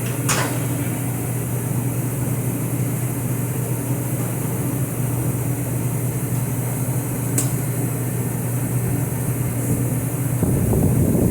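Shop heater running with a steady low hum, which makes the garage loud. Two sharp clicks cut across it, one just after the start and one about seven seconds in.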